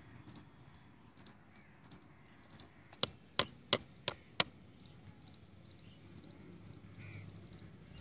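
Claw hammer driving a nail through two crossed plastic pipes: five quick, sharp blows about three seconds in, the last two lighter.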